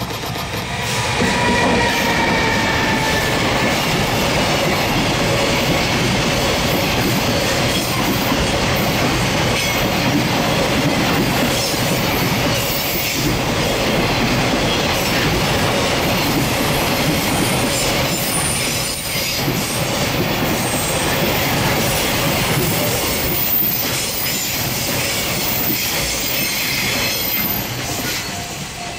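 An EF210 electric locomotive and a long rake of container wagons passing close by, a steady heavy rumble and clatter of wheels on the rails. There is a brief high squeal near the start, and the noise fades as the last wagons go by near the end.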